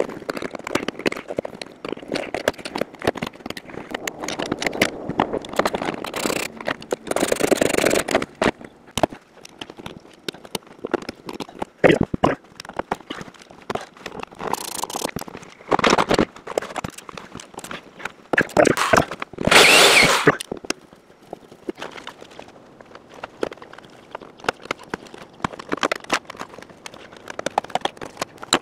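Plastic interior trim being pried and pulled off a Lexus SC: irregular clicks and snaps of clips letting go, with plastic rattling and scraping and a few longer, louder scrapes, the loudest about twenty seconds in.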